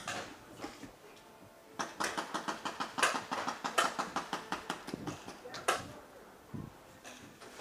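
Paintball markers firing a rapid string of sharp pops, about six to eight shots a second, for about three seconds, followed by a single shot near the end.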